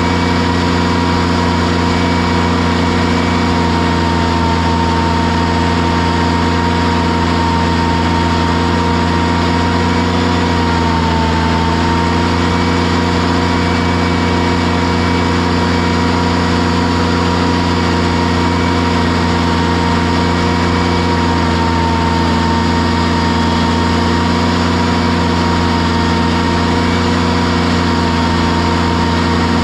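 Engine running steadily with a constant whine, its pitch dipping briefly about eleven seconds in before recovering.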